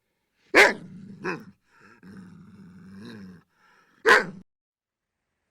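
Shepherd dog growling between three sharp barks, the first about half a second in, a weaker one just after a second, and the last about four seconds in.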